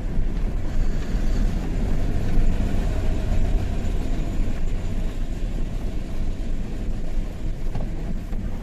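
Truck engine running: a steady low rumble with no break.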